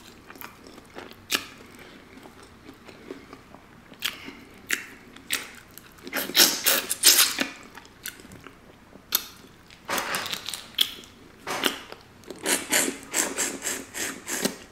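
Close-miked eating of boiled crawfish in sauce: wet smacking, sucking and chewing, with crawfish shells crackling as they are pulled apart by hand. The sounds come in irregular clusters of quick clicks and smacks, the loudest about six to seven seconds in.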